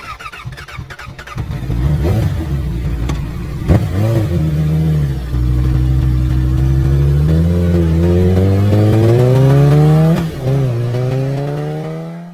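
Motorcycle engine revving and accelerating, its pitch climbing steadily, dropping back at gear changes and climbing again, then fading out at the end. A sharp click sounds about four seconds in.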